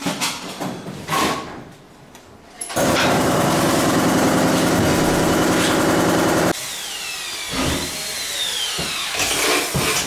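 Clicks and knocks of a hand tool on a carbon-fibre exhaust silencer. About three seconds in, a loud, steady motor-driven running noise starts abruptly, then cuts off suddenly a little past the middle. After it comes quieter noise with a faint tone that rises and falls.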